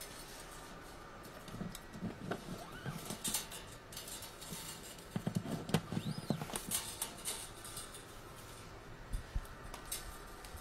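Small clicks, taps and rustles of guitar strings and bridge pins being handled and pushed into the bridge of an acoustic guitar, coming in two clusters, about two seconds in and again around six seconds in.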